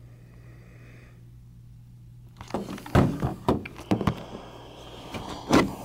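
Handling noise from a cordless impact wrench and its battery charger being picked up and set down on a table: quiet for about two seconds, then a run of knocks and clatter, with the loudest thumps about three seconds in and near the end.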